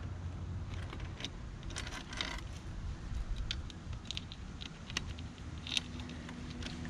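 Scattered light metallic clicks, taps and scrapes of hands and tools working around a dirt-bike engine's timing chain, with a short scrape about two seconds in.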